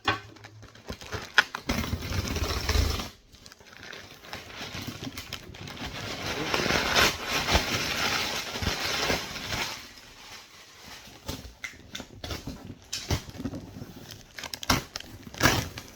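A parcel being opened by hand: packaging rustling and crinkling, with scattered clicks and knocks and a low thump of handling about two seconds in.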